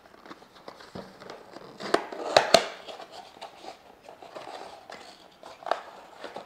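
A cardboard box being opened and handled: rustling and scraping of the packaging, with a few sharp clicks and snaps, the loudest about two and a half seconds in.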